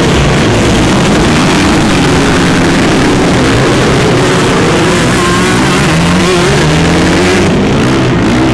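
A pack of motocross bikes launching from the start line and accelerating away together, many engines revving at once, their notes rising and falling over one another.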